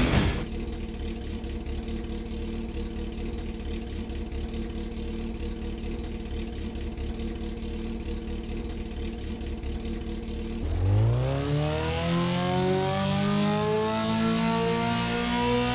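Four-cylinder motorcycle engine running at a steady idle, then about ten and a half seconds in revving up quickly and holding at higher revs, still climbing slightly.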